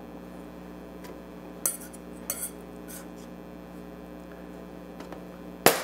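Light clicks and scrapes of a small metal spatula against the floured countertop and metal baking sheet as cut cookies are lifted off: two faint clicks about two seconds in and a sharper knock near the end, over a steady low hum.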